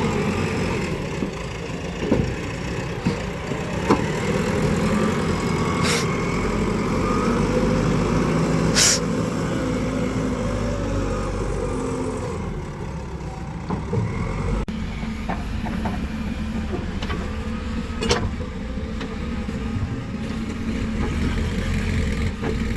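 Heavy diesel engines of backhoe loaders and tractors running steadily under load. A few short, sharp sounds cut through, about 6, 9 and 18 seconds in.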